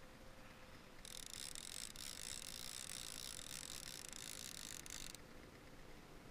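Fishing reel running with a high, ticking buzz for about four seconds, starting and stopping abruptly, as a salmon is fought on the rod.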